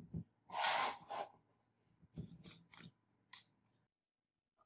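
Plastic bottles and containers being handled by gloved hands: a short rustling scrape about half a second in, then a few light clicks and knocks.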